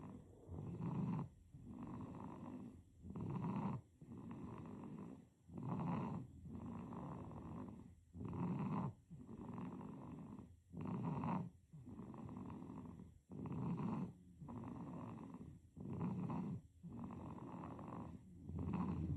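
Baby snoring in sleep, an even rhythm of about one breath every two and a half seconds, each breath a louder snore followed by a softer one.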